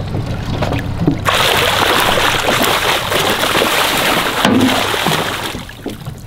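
A hooked lingcod thrashing at the surface beside the boat as it is gaffed: heavy splashing that starts about a second in and lasts about three seconds.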